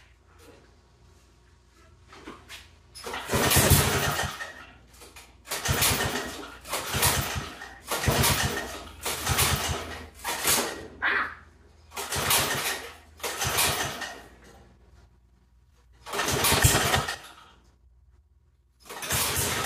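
Antique Toro Snow Hound 20 snowblower's small gasoline engine being started: about nine short bursts of cranking and sputtering, each lasting about a second, then it catches near the end and keeps running steadily.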